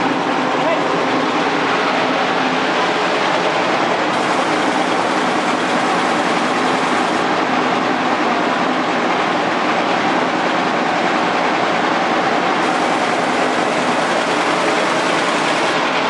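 Flatbed rice dryer's blower fan and its small stationary engine running steadily: a loud, even rush of air with a low engine hum underneath.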